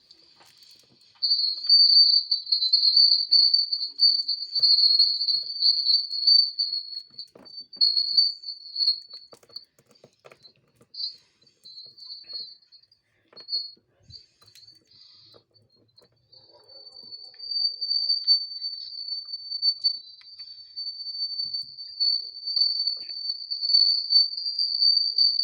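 A loud, piercing high-pitched tone held steady, breaking up into short choppy fragments in the middle before settling back into one unbroken tone.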